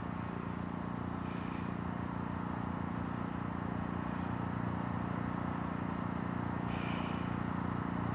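Steady low mechanical hum holding a constant pitch and level, of the kind an idling vehicle engine or a generator makes. Faint short high-pitched sounds come in about a second in and again near seven seconds.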